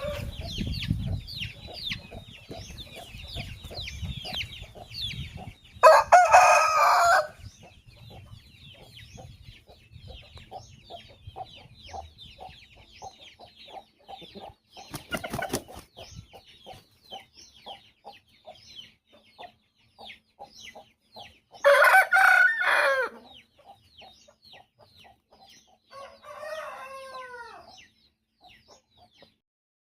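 A flock of Aseel chickens clucking and peeping continuously, with a rooster crowing loudly twice, about six seconds in and again past the twenty-second mark, and a shorter squawk near the end.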